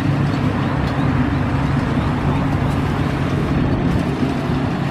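Yanmar AW70V rice combine harvester running steadily while harvesting: its diesel engine and threshing machinery give an even, constant hum.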